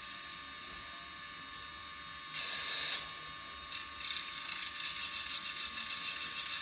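LG WT5680HVA top-load direct-drive washer running mid-cycle with a full load: a steady mechanical hum and hiss with a constant high tone. It surges louder briefly about two and a half seconds in, then turns to a fluttering, rapid churn from about four seconds on.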